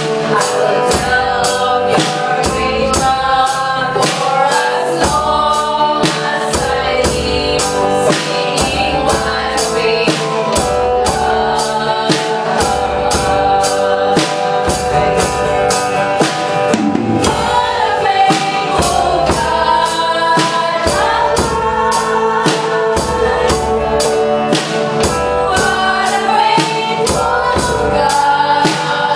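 Worship song sung by a group of voices with band accompaniment, over a steady beat of about two strikes a second.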